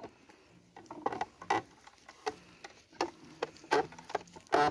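Wooden hand-turned sugarcane press (trapiche) creaking and knocking as its wooden rollers turn and crush cane stalks. It comes as a string of short creaks and squeaks at an uneven pace, about one every half second to a second.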